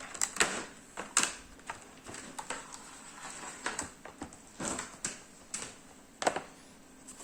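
Irregular sharp clicks and taps from a plastic tablet book cover being handled, with faint rubbing between them.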